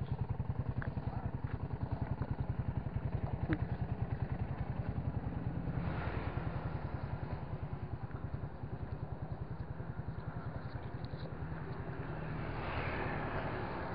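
An engine idling with a steady, rapid, even putter; a wash of noise swells briefly near the end.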